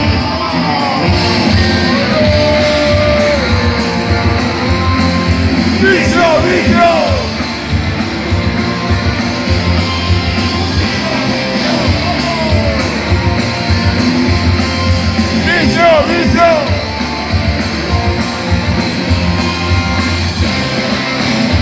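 Rock band playing loud live through a stage PA: electric guitars, bass and drums.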